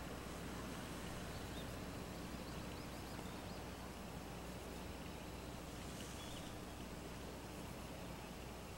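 Faint, steady outdoor ambience: an even background hiss over a low hum, with a few faint, short bird chirps, one about six seconds in.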